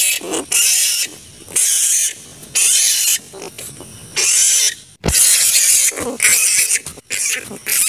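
Flying foxes (kalong fruit bats) screeching: a string of harsh, hissing shrieks, one after another with short gaps.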